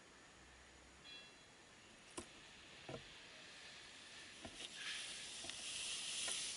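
Wary mother cat hissing at close range: two breathy hisses near the end, preceded by a few faint knocks and scrapes.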